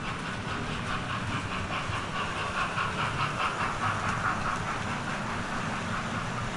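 Model train running on the layout's track: a fast, even clicking of wheels over rail joints over a steady low hum, loudest about three to four seconds in as the coaches pass close by.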